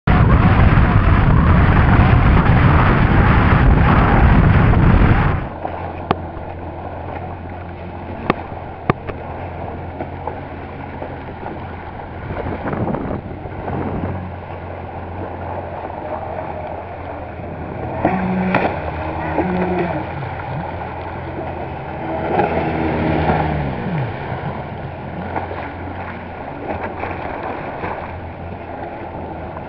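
Watercraft engines running on open water. For about the first five seconds there is loud wind-and-spray rush. Then comes a steady low engine hum, with a few sharp knocks and engine pitch rising and falling as the jet ski turns and passes.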